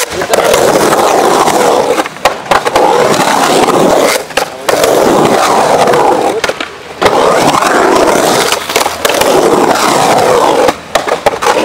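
Skateboard wheels rolling loudly on concrete ramps, broken a few times by short gaps and sharp knocks of the board on the concrete.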